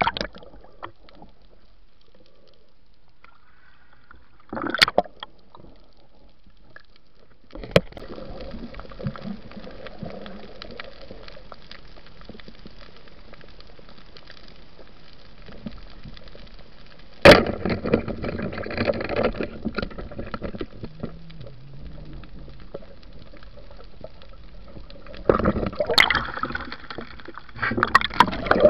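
Muffled underwater water noise and gurgling picked up by a submerged camera, quiet at first, then a steady rushing haze broken by a few sharp knocks.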